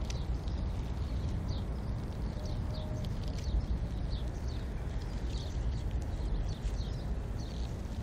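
Outdoor ambience: a steady low rumble of wind on the microphone, with short high chirps repeating irregularly throughout.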